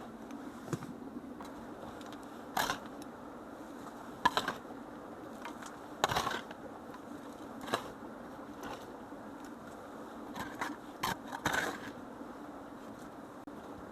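Irregular short scrapes and knocks, about a dozen, the loudest a few seconds in and again around the middle, over a steady low hum.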